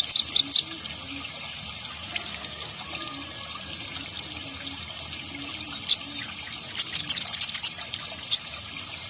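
Kolibri ninja sunbird giving short, sharp, high chirps: a few right at the start, single chirps near 6 s and 8 s, and a fast run of chirps around 7 s, over a steady background hiss.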